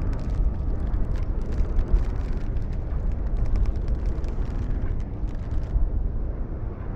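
Strong wind rumbling heavily and unevenly. Irregular sharp clicks and creaks run over it and stop near the end.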